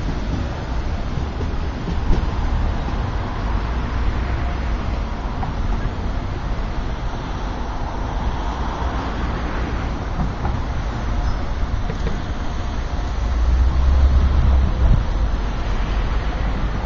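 Steady low rumble of traffic, with a sleeper train rolling away over the tracks. A louder rumble swells up about thirteen seconds in and eases off two seconds later.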